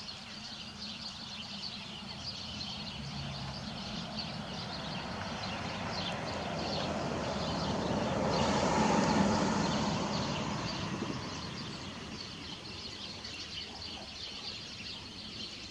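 Small birds chirping steadily, while a broad rushing sound swells up, peaks about halfway through and fades away again.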